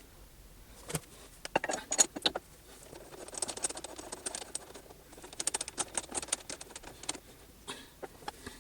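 Several sharp metal clinks, then a quick run of light ticking and rattling from small metal parts or tools being handled.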